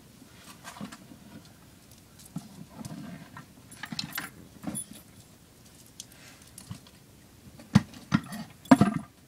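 Handling noise: scattered clicks, light knocks and rustling as objects are moved about close to the microphone, with a cluster of sharper knocks near the end.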